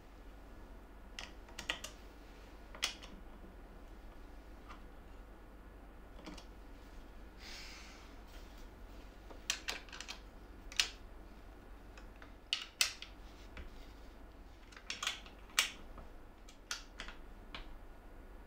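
Scattered light clicks and knocks of an electric hand planer being seated in a plywood parallel-link jig and the jig's bolted link arms being handled, with a brief rustle about eight seconds in. The planer is not running.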